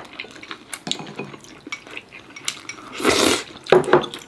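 Chopsticks and spoons clinking against bowls and a hot pot during a meal: a scatter of light clicks, with a short noisy burst about three seconds in followed by a few sharper knocks.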